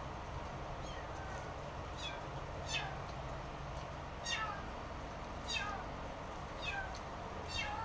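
An animal's short, high calls, each falling in pitch, repeated roughly once a second over a steady low hum.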